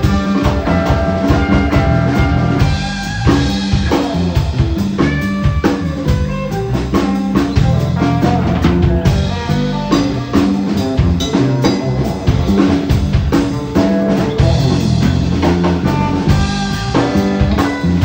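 Live band music: an amplified hollow-body archtop electric guitar played over a drum kit, with a steady beat and sustained guitar notes.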